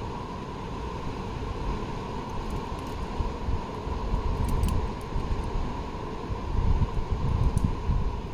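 Wind buffeting an outdoor microphone: an uneven low rumble that swells about four seconds in and again near the end.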